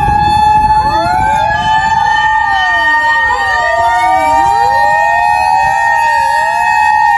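Several Japanese fire engine sirens sounding together: hand-operated and motor sirens winding up and down in pitch, overlapping, over one siren held at a steady high pitch. A low rumble of wind buffeting the microphone runs underneath.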